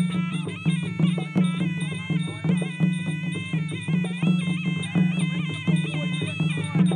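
Traditional Khmer boxing music: a reedy sralai oboe plays a continuous wavering melody over a steady low drum beat of about one and a half strokes a second, with light cymbal ticks on top.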